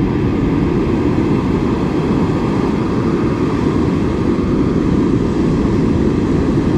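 Steady low rumbling noise of wind on the microphone and surf breaking on the beach, even throughout with no distinct events.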